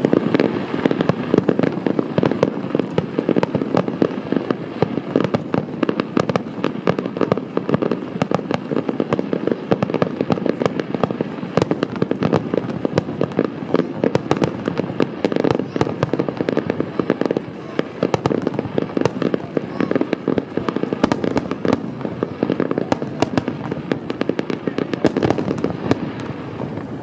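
Aerial fireworks going off in a dense, unbroken barrage of bangs and crackles, many per second.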